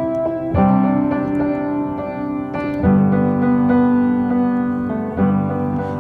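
Background music: sustained keyboard chords, with a new chord struck about every two seconds.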